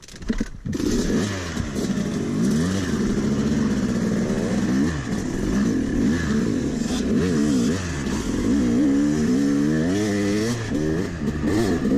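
Yamaha 250cc two-stroke dirt bike engine being ridden off-road, its revs rising and falling again and again as the throttle is opened and closed. It starts up loudly just under a second in.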